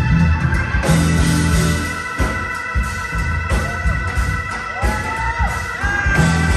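Live jazz-fusion band playing: sustained keyboard chords over bass and drums, with a lead line that slides up and down in pitch a little past halfway.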